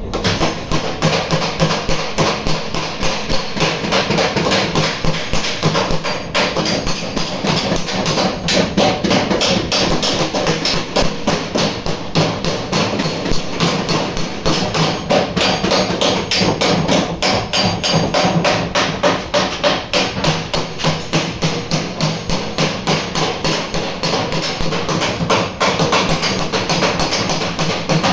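Steady hammer blows on sheet-steel car door panel, about three a second, as a dent is beaten out.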